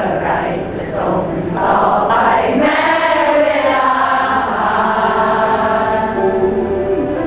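A group of people singing together, holding long notes.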